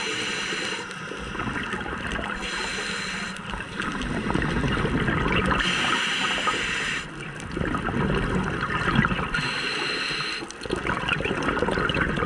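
Scuba diver breathing through a regulator underwater: a hissing inhale alternating with a rush of bubbling exhaled air, four breaths at about one every three seconds.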